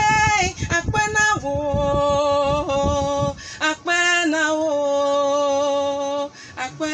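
Singing over musical backing: long held sung notes over a low beat, which drops out about three and a half seconds in, leaving sustained vocal notes.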